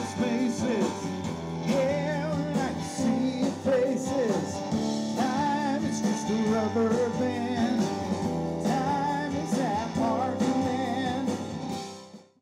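A rock band playing with a male lead singer and acoustic guitar. The music fades out near the end.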